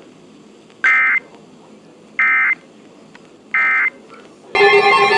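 Three short bursts of Emergency Alert System digital data tones, evenly spaced a little over a second apart: the SAME end-of-message code that closes the weather warning. Near the end a loud, steady sound of several tones starts.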